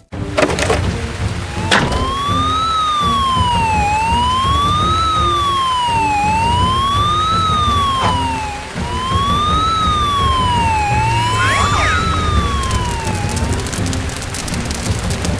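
Emergency vehicle siren wailing, its pitch rising and falling evenly about every two and a half seconds, over a steady low rumble. Two sharp knocks come near the start.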